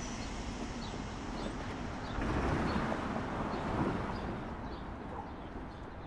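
Outdoor city street ambience: a steady noisy hum of traffic and wind. It swells louder for a couple of seconds in the middle, then eases off.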